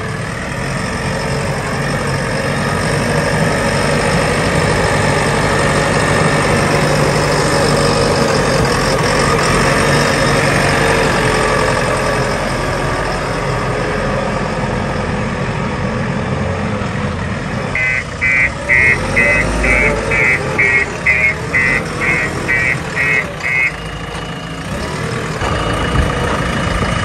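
JCB 3DX Plus backhoe loader's diesel engine running steadily under way. About two-thirds of the way in, a high warning beeper sounds about a dozen times, roughly two beeps a second, for some six seconds.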